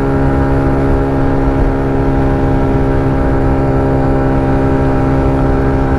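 TVS XL100 moped's single-cylinder four-stroke engine running at a steady pitch, held near full throttle at highway speed, with wind rumble on the microphone.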